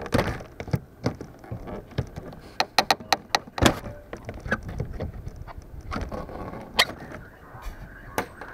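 Claw hammer knocking and clinking against a nailed soffit panel while working the nails out: a scatter of sharp knocks, with a quick run of them about three seconds in and another hard knock near the end.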